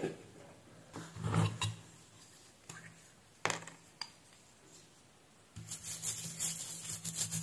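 A brush scrubbing the solder side of a printed circuit board wet with isopropyl alcohol: a continuous scratchy rubbing that starts about five and a half seconds in. Before it come a few short knocks and clicks as the board and brush are handled.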